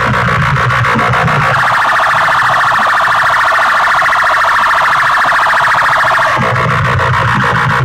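Massed horn loudspeakers blasting at full volume, harsh and distorted. From about a second and a half in until about six seconds in, a rapidly pulsing high tone like an alarm dominates. A low thudding beat plays before and after it.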